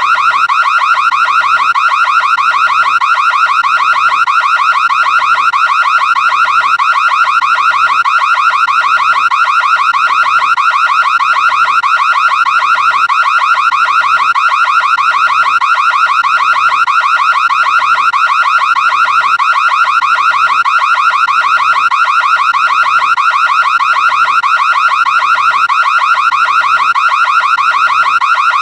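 ADT house security alarm sounding continuously and loudly: a high, steady tone with a rapid warble, with a soft pulse underneath repeating a little faster than once a second. The alarm has been tripped.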